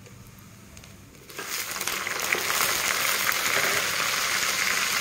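Hot ghee and oil of a tadka sizzling, first faintly around cumin seeds, then suddenly loud about a second and a half in and steady from there as sliced onion fries in it, with a few small pops and crackles.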